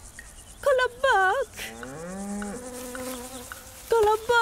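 Cartoon soundtrack: short, buzzy pitched tones that slide up and down in brief phrases, with one longer rising glide about halfway through.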